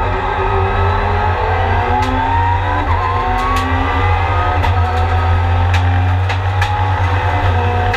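Mitsubishi Lancer Evolution time-attack car's turbocharged four-cylinder engine heard from inside the stripped race cabin, pulling hard with its pitch rising over the first few seconds, then holding high and dipping near the end. A steady low drone runs underneath, with several sharp clicks along the way.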